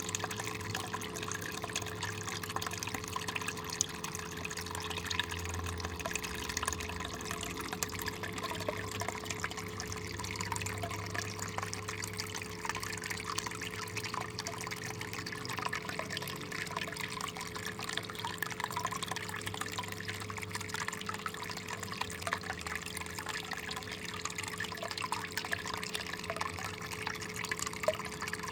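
Water running steadily through a mini gold sluice, trickling and splashing as it washes black sand out of the concentrates to leave the fine gold behind. A steady hum runs underneath.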